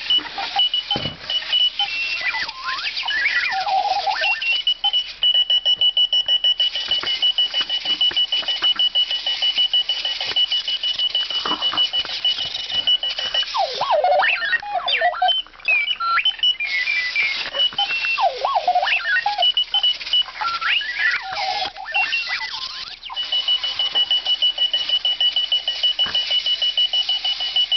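Clocky self-propelled alarm clock going off: a loud string of robot-like electronic beeps, chirps and warbling glides, twice settling into a steady high beep held for several seconds. Under the beeping runs the whir of its wheel motors as it rolls off and drives around.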